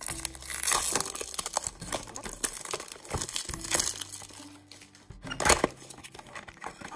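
A small cardboard blind box being torn open by hand: irregular rustling and crinkling of the packaging, with sharp rips about a second in and again about five and a half seconds in.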